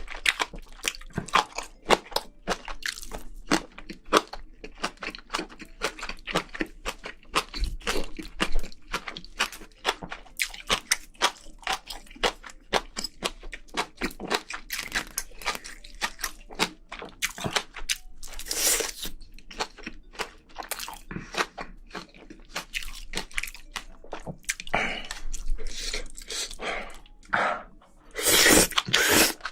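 Close-miked chewing and crunching of spicy braised seafood with bean sprouts: a dense, irregular run of wet clicks and crisp snaps, with a couple of longer rushing sounds near the middle and near the end.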